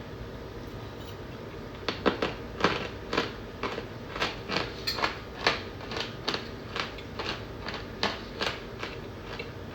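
Chunks of cornstarch crunching as they are crushed, about two sharp crunches a second, starting about two seconds in over a steady background hiss.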